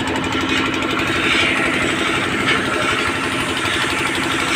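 Mawa-making plant machinery running steadily: a continuous mechanical hum with a fast, even pulsing beat over a dense rushing noise.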